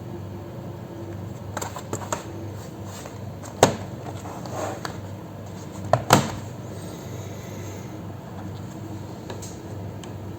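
Laptop parts being handled on a work surface: a few light clicks, then a sharp knock a little over a third of the way in and a quick double knock past the middle, over a steady low hum.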